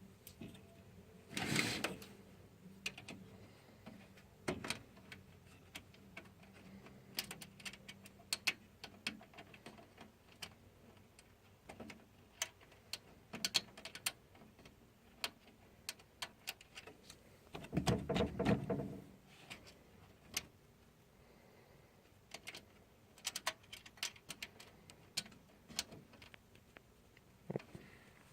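Hands working inside a desktop PC case: scattered sharp clicks and knocks of metal and plastic parts and screws being handled, with two longer, louder bursts of handling noise, about two seconds in and again past the middle.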